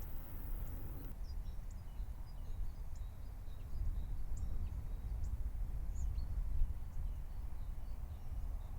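Wind rumbling on the microphone outdoors, with faint, scattered bird chirps.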